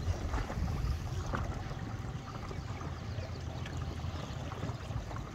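Wind buffeting the microphone, a steady low rumble that eases a little after about two seconds.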